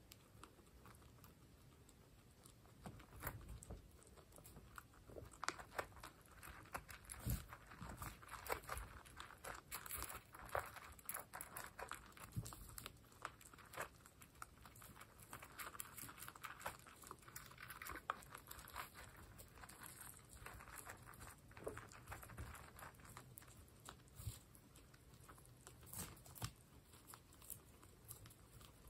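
Guinea pigs crunching dry pellets: a fast, faint run of small crisp crunches and clicks, busiest through the first two-thirds and thinning out near the end.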